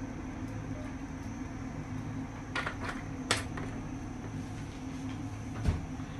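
Steady low hum of a lit gas stove burner heating an oiled frying pan, with a few sharp clicks about halfway through and a soft knock near the end.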